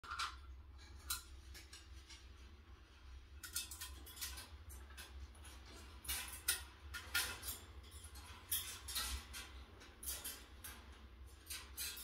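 African grey parrot climbing about a wire cage, its beak and claws gripping the metal bars in irregular faint clicks and scrapes, a few each second.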